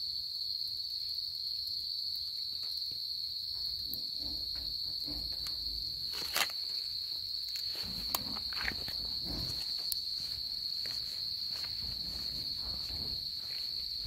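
Steady high-pitched chorus of night insects shrilling without a break. Scattered soft clicks and shuffles sound over it, with one sharp click about six seconds in.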